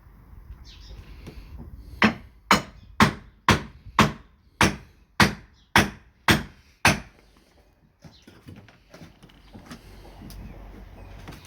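Hammer blows on the timber of a wooden shed being dismantled: about ten sharp strikes, roughly two a second, then they stop.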